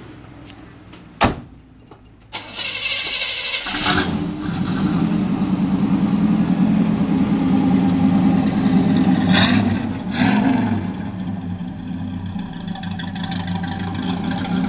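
A Chevy 350 crate V8 being started: a sharp knock about a second in, then the starter cranking for about a second and a half before the engine catches. It then runs loudly and settles toward a steadier idle near the end.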